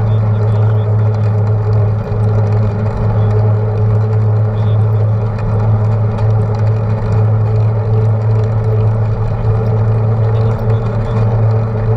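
Knobby bicycle tyre humming steadily as it rolls on asphalt at an even speed, with wind rumble on the handlebar-mounted camera.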